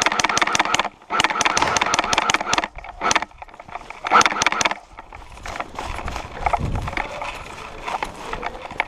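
Automatic airsoft gun firing in rapid bursts, a fast string of clacks. Three or four bursts come in the first five seconds, then it gives way to quieter scattered knocks and rustling.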